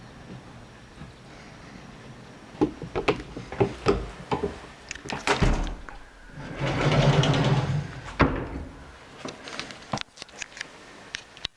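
A run of knocks and thuds in a small room, with a sliding, rumbling sound lasting about a second and a half just past the middle, then a few more light knocks.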